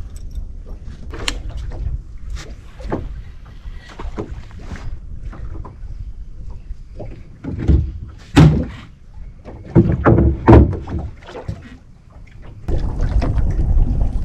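Scattered knocks and thumps against a small wooden boat's hull and deck, the loudest about eight and ten seconds in. Near the end a steady rushing noise begins.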